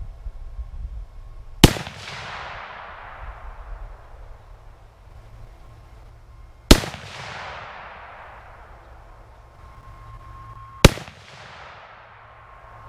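Three rifle shots from a Remington 770 bolt-action in .30-06, about four to five seconds apart, each followed by a long echo fading away.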